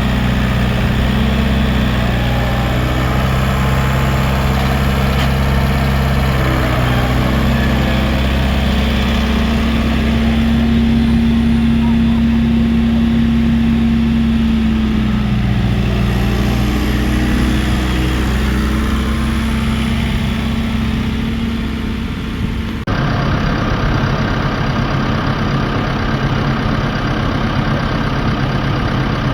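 Farm tractor engine running steadily, its pitch rising and holding higher for a few seconds midway before dropping back. The sound changes abruptly about three-quarters of the way through, and an engine is still running after the change.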